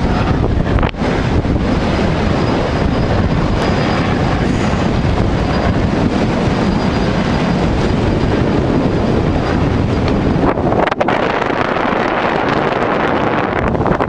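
Strong wind buffeting a camera microphone on an open boat deck: a loud, steady rushing noise that drops out briefly twice, about a second in and again about eleven seconds in.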